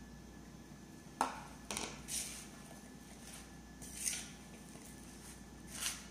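A metal spoon clinking and scraping against a bowl while stirring flour into shredded cabbage: one sharp clink about a second in, then a few short scrapes a second or two apart.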